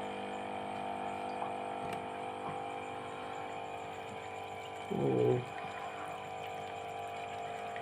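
Aquarium air pump running with a steady hum of several tones, pushing air through a sponge filter so that water bubbles and splashes faintly. A person's voice sounds briefly about five seconds in.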